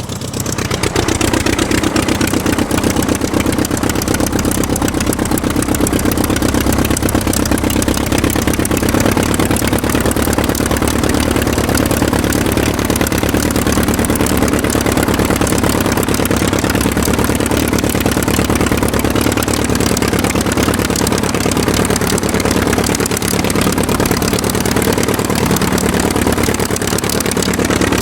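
Aircraft engine running steadily. It builds up over the first second, then holds an even, rapid firing beat.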